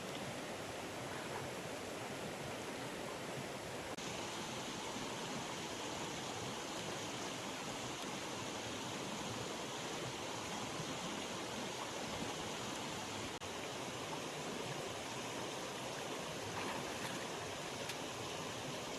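A stream's running water: a steady, even rush.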